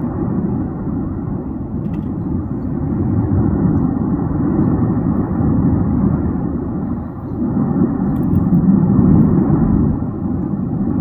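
Tajogaite volcano erupting: a steady, deep rumble that swells louder about eight seconds in.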